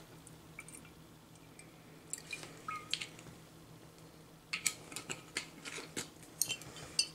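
Mojito mix trickling from a bottle into a wine glass, then a bottle being handled and its cap twisted on, with a run of small clicks and taps in the last couple of seconds.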